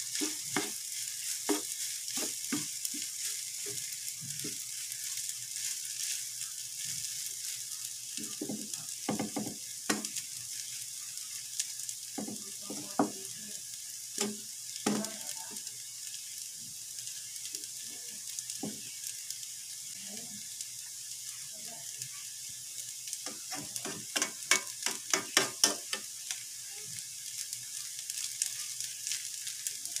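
Rice sizzling as it fries in a nonstick frying pan, with a spatula scraping and knocking against the pan in scattered strokes and a quick run of about four strokes a second a little past two-thirds of the way through.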